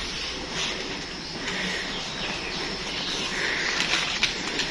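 Outdoor background noise with faint, scattered bird chirps and a few sharp clicks near the end.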